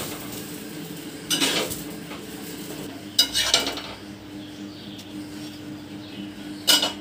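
Kitchen utensils knocking and clattering against an iron dosa griddle and plate as a cooked poli is lifted off: a few short clatters about a second and a half in, around three seconds in, and once near the end.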